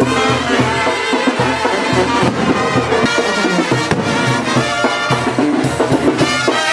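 Brass band music playing.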